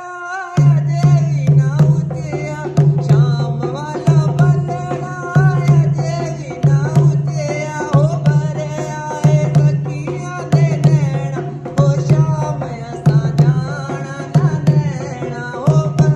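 Dholak played by hand in a steady folk rhythm, with a deep bass stroke about every second and a quarter between quicker, sharper strokes, and a sung melody over it.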